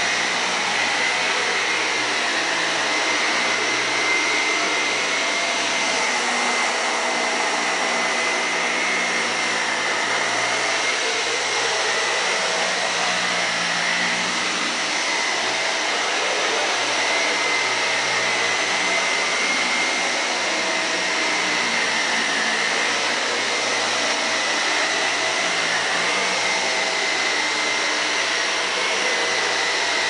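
Dyson Big Ball Animal vacuum cleaner running steadily while it is pushed over a rug: a constant rush of air with a high motor whine.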